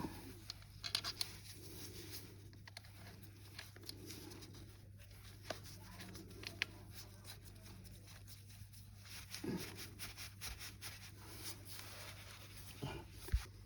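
Scattered small clicks and light taps over a steady low hum, with a couple of slightly louder knocks about nine and a half and thirteen seconds in.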